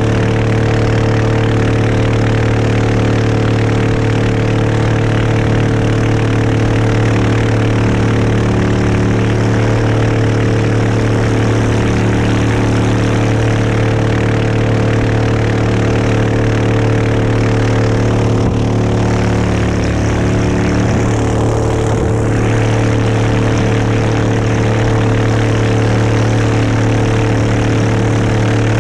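Boat engine running steadily under way, a constant loud drone with a brief change in its note about twenty seconds in.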